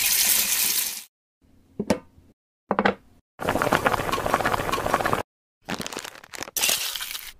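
Loose plastic LEGO bricks rattling and clattering as they are stirred and poured, in several short bursts with sharp clicks between. Each burst stops abruptly into dead silence.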